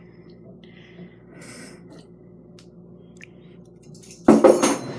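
Quiet handling at first; about four seconds in, a metal spoon clatters and scrapes loudly against the slime-mixing container.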